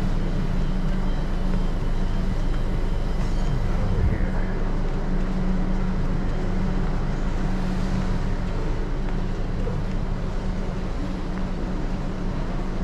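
Steady background noise of an indoor market hall: a constant low hum with a rumble underneath, unbroken and with no distinct events.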